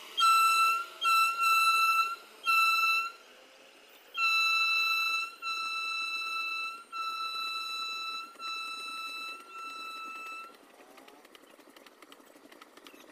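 Indian Railways electric locomotive's horn sounding one high steady note in a string of blasts: four short toots, then five longer ones of about a second each, stopping about ten and a half seconds in. Faint rail clatter follows.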